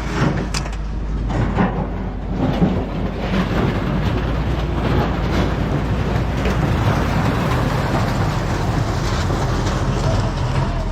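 Engine running with a steady low rumble and a constant hum, with no change in pitch.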